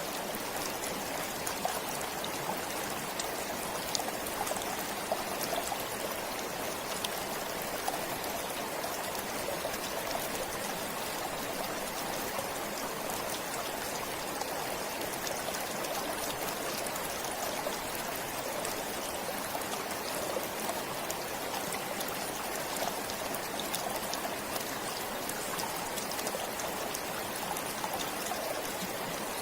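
A forest stream flowing steadily, with light trickling and small splashing ticks.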